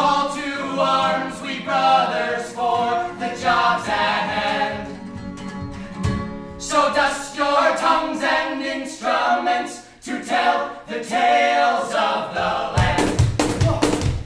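Several voices singing together in harmony over an acoustic guitar. The singing breaks off briefly about six seconds in and resumes, and a beat comes in near the end.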